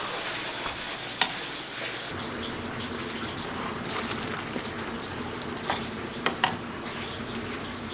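Liquid bubbling and simmering in a pot at a street-food stall, steady throughout, with a few sharp clicks, one about a second in and three close together near the end.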